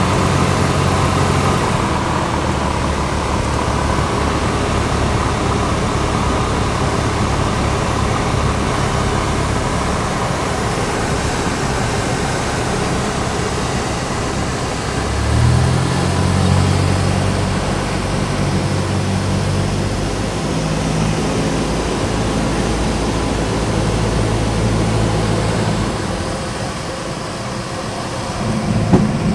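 Single-engine light aircraft's piston engine and propeller running, heard inside the cabin during approach and landing. The engine note shifts suddenly about halfway through. There is a sharp knock near the end.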